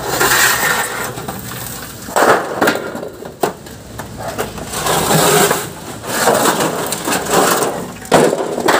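Irregular bursts of crunching and cracking, with a few sharp knocks in between, like wood or debris being broken and pulled apart.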